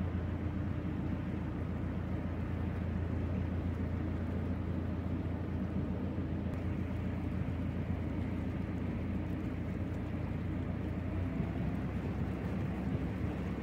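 Narrowboat's diesel engine running steadily under way as a constant low hum; the hum changes a little about eleven seconds in.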